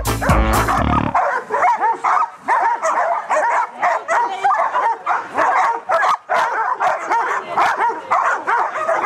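A pack of Old English Sheepdogs barking and yipping over one another, several short, high barks a second.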